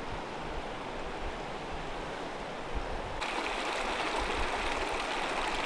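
A shallow, partly frozen mountain stream running over rocks, a steady rushing of water over an uneven low rumble. About three seconds in it turns louder and brighter.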